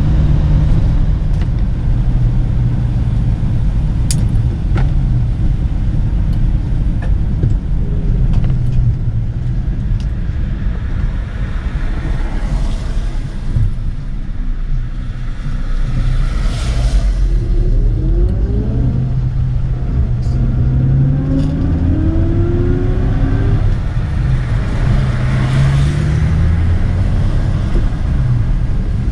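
Rover P4 100's straight-six engine running heard from inside the car while driving, its note rising as the car accelerates about two-thirds of the way through. A few brief swells of road noise come and go.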